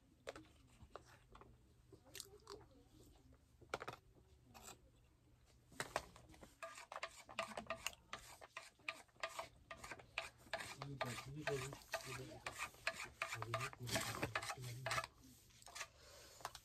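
Spoon scraping and scooping biryani in an aluminium foil takeaway tray: a run of short scrapes and clicks, sparse at first and busier from about six seconds in.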